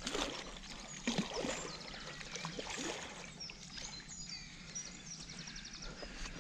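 A hooked carp splashing and thrashing at the water's surface as it is played in to the bank, the largest splashes in the first second and a half, then quieter sloshing.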